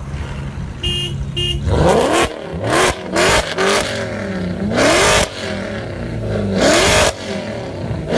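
Mercedes-AMG C63 with a loud exhaust, revved in about five sharp throttle blips. Each rises quickly in pitch and drops back to idle between them.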